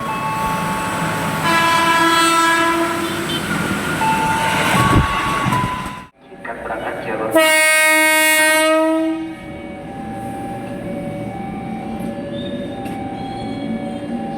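KRL Commuterline electric commuter train horns. First a multi-tone horn chord is held for about two seconds and is followed by a few shorter, higher notes. After a cut, a second loud horn chord sounds for about two seconds, and then the train is heard running by with a steady hum and rumble.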